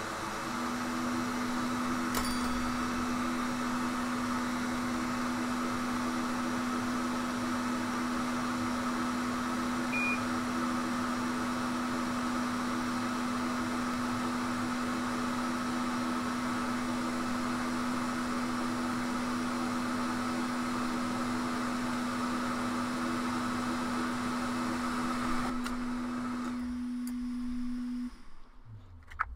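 Hot air rework station blowing steadily, a hiss of air over a constant low hum, while it heats the solder to reattach the metal shield on an iPhone 11 logic board. It shuts off near the end.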